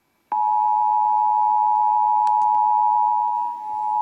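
Emergency Alert System attention signal: the steady two-tone alarm (853 and 960 Hz together), starting about a third of a second in. It announces an emergency alert, here a tornado warning.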